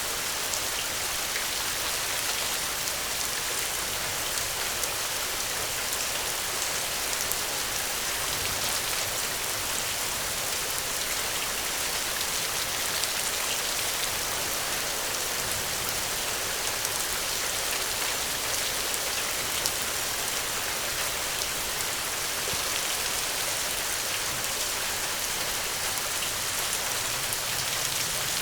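Steady rainfall, an even hiss with many small drop ticks on a surface.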